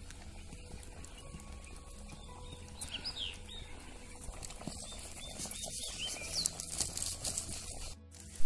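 Quiet outdoor ambience around a wood fire under a pot of simmering fish curry, with faint scattered clicks and a few faint high chirps. Right at the end a sudden louder sound comes as the curry is ladled onto a steel plate.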